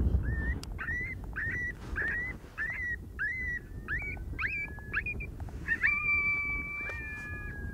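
Coyote yips, short rising calls about two a second, that break into long level howls about six seconds in, two voices at different pitches held together, with a lower drawn-out howl joining near the end.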